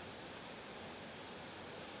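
Steady, even hiss with no breaks or changes, sitting high in pitch with little rumble beneath it.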